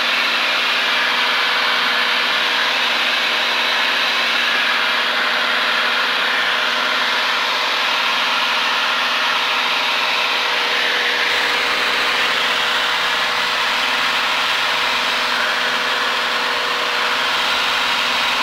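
Steady drone of a single-engine light airplane's engine and propeller in flight, heard from inside the cockpit: a constant hum under a thick rush of noise.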